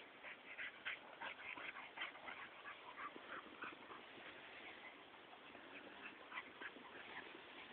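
A harrier hound and a pitbull mix at play, with a quick run of short, high sounds, several a second, that thins out and fades toward the end.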